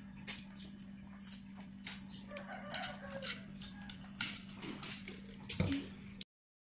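Eating dry instant noodles with wooden chopsticks: scattered sharp clicks of the chopsticks against the bowl and slurping, with a louder knock near the end, over a steady low hum.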